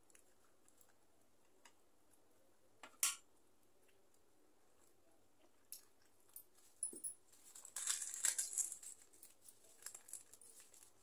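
Quiet eating sounds at a steel thali: scattered sharp clicks and a dull knock, the loudest a single click about three seconds in, then a short burst of crackling as a roti is torn apart by hand.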